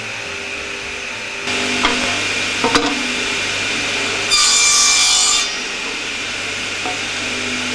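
Table saw running steadily, its blade cutting through a small wooden strip for about a second, roughly four seconds in; a couple of sharp knocks come a couple of seconds before the cut.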